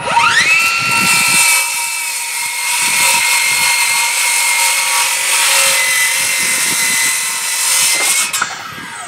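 Ryobi 18-volt One Plus brushless 7 1/4-inch circular saw starting with a soft start, its whine rising over about half a second. It then cuts through an old, dry, dense 2x8 of pressure-treated lumber with a steady high whine. About eight seconds in the motor cuts off and the blade stops quickly under its electric blade brake.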